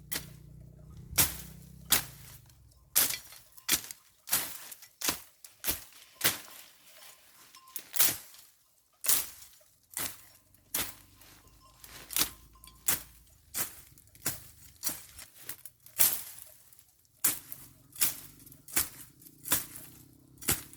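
Repeated chopping strikes of a hand tool cutting through weeds, irregular, about one or two sharp blows a second.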